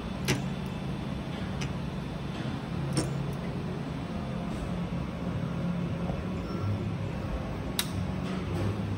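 Creality Ender-5 Pro 3D printer printing: its stepper motors hum in low tones that shift in pitch every second or so as the print head moves, over the steady noise of its fans. Three sharp clicks stand out, at the start, about three seconds in, and near the end.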